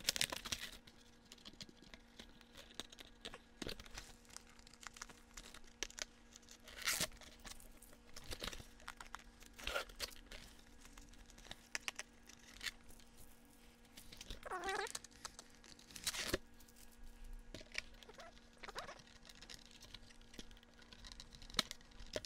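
Cardboard box and plastic packaging being handled while a toy dagger is worked free of its tray: scattered crinkles, rustles and small clicks, coming and going in short bursts.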